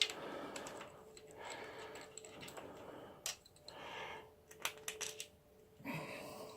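Steel clutch cover bolts clicking and clinking against each other and the tools as they are handled and laid down, a few sharp irregular clicks with soft rustling between them.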